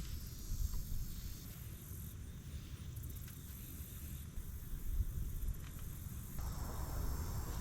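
Outdoor ambience: gusty wind rumbling on the microphone, with faint high insect chirping; the background changes abruptly about six seconds in.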